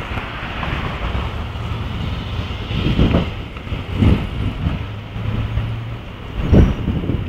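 Wind buffeting the microphone of a camera carried on a moving bicycle, in gusty low thumps, over a low steady engine hum from street traffic that stops about a second before the end.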